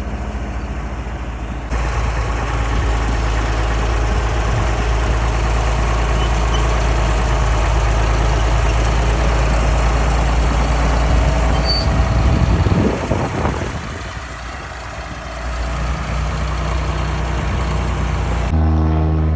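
Old bulldozer engine running steadily, with a brief drop and change in its sound a little past the middle.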